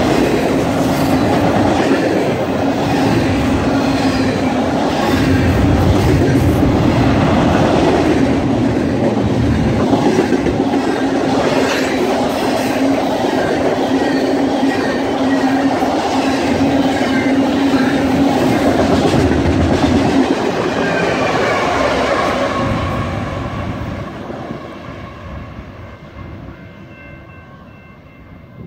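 Double-stack container cars of a long BNSF freight train rolling past, a steady rumble with the wheels clicking over the rail joints. The sound dies away over the last several seconds as the end of the train goes by.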